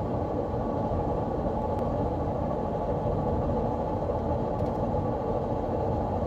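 Honda Step WGN on the move, with a steady drone over the low road rumble. The owner suspects a failing wheel hub bearing that could lock up.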